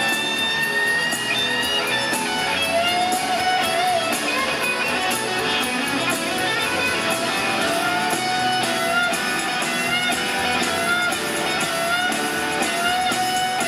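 Live rock band with an electric guitar solo on a Telecaster-style guitar: long sustained lead notes that bend and waver in pitch, over a steady drum beat and the rest of the band.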